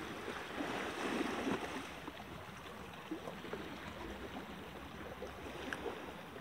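Small waves lapping against a rocky shoreline: a steady wash of water, a little louder in the first two seconds.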